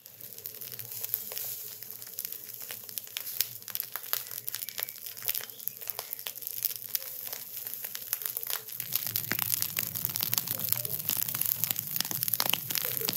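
Burning straw fire crackling and popping densely over a steady hiss; a low rumble grows louder about nine seconds in.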